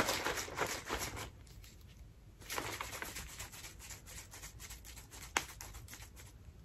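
Plastic shaker cup and its snap lid being handled: scattered clicks and crackly rustling, with one sharp click about five seconds in.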